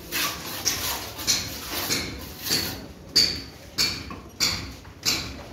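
Sharp, evenly spaced clinks of bricklaying on red brick, about three every two seconds, each with a short ring.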